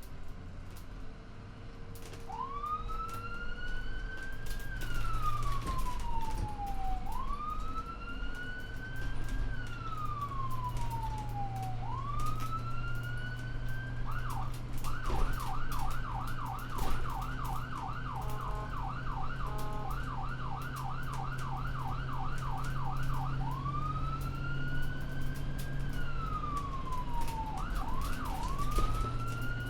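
Emergency vehicle siren in wail mode: a tone sweeping slowly up and down every four to five seconds. About halfway through it switches to a fast yelp of about three sweeps a second for several seconds, then goes back to the slow wail, over a steady low vehicle engine hum.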